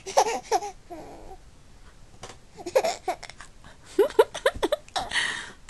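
A four-month-old baby laughing in several short, high-pitched squealy bursts, ending in a breathy exhale near the end.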